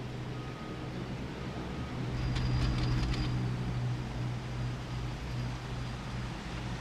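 Ski chairlift machinery running with a steady low hum. About two seconds in it swells and gives a quick run of clicks.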